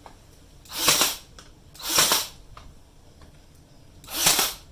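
Three loud, sharp bangs as a wooden patch piece is fixed roughly in place on a window sill: two about a second apart, then a third about two seconds later.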